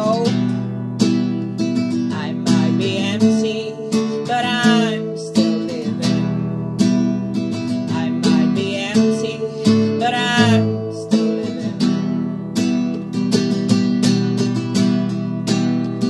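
Song between sung lines: strummed guitar chords in a steady rhythm, with a wavering high melody line rising over them a few times.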